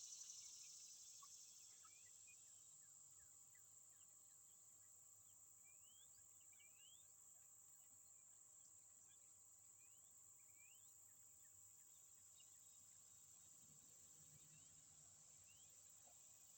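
Near silence outdoors: a faint steady high insect drone, with scattered faint short rising bird chirps.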